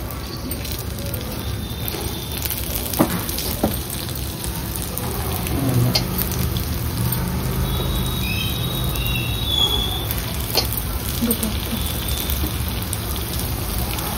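Small urad dal vadas frying in hot oil, a steady sizzle. A few sharp clicks sound over it.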